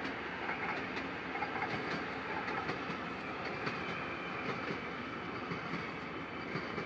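A train rolling through a station yard, heard from aboard: a steady running rumble with scattered clicks of the wheels over rail joints.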